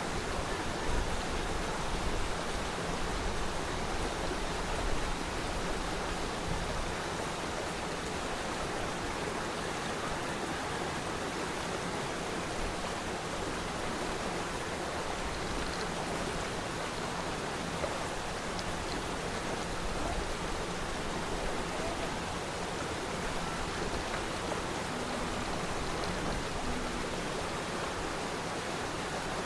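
Steady rush of water from a waterfall, an even hiss without breaks.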